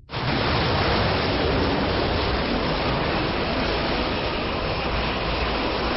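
A loud, steady rushing noise, an anime action sound effect, switches on suddenly and holds without a break.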